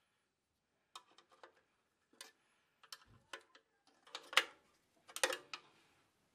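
Faint, irregular metal clicks and taps of screws, bracket and hand tool as an ignition coil's strap bracket is fastened to a small engine's sheet-metal blower housing. The loudest clicks fall a little past the middle.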